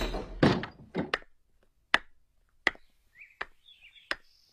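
A door clattering open, then slow, evenly paced footsteps, about one step every three quarters of a second, with faint bird chirps between them.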